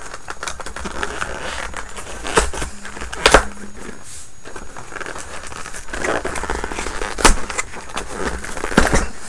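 Hands handling and opening a stapled cardboard box: rustling and scraping with a few sharp knocks, the loudest about three seconds in and again about seven seconds in.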